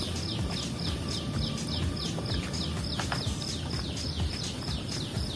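An animal chirping: a high note falling in pitch, repeated evenly about four times a second, over a low steady rumble. A faint click comes about three seconds in.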